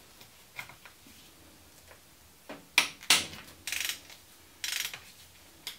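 Socket ratchet clicking in two short runs, with a few sharp metal clicks, as a long extension works a plug loose on the manual gearbox of a BMW E90 M3.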